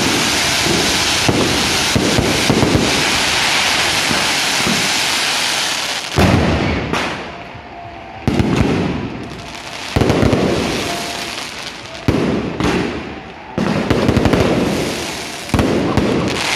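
Volleys of small bottle rockets fired from a beehive rocket tower. First comes an unbroken dense crackle and hiss of massed rockets for about six seconds. Then there is a run of separate volleys, each starting suddenly and dying away, about every two seconds.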